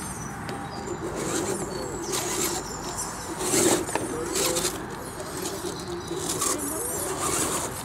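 Electric motor and gears of a radio-controlled scale crawler truck whining in repeated short bursts of throttle as it crawls over dirt and roots.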